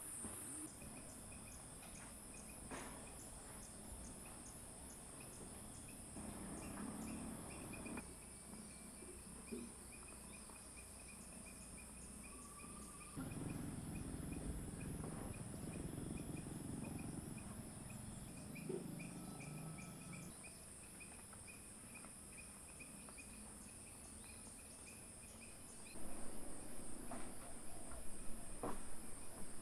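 Insects trilling in a steady, high-pitched chorus, with a second insect chirping in quick, even pulses at a lower pitch. Near the end come louder knocks and rustling.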